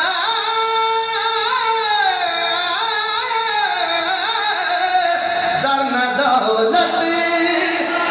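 A man singing a qasida, an Urdu devotional poem, into a microphone in long, drawn-out melodic lines that glide up and down in pitch.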